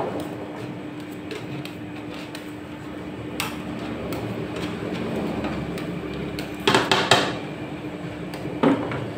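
Metal spatulas chopping and scraping ice cream mixture on the steel cold plate of a rolled ice cream machine, over a steady hum. A sharp clack comes about a third of the way in, a loud run of clacks about three quarters through, and one more just before the end.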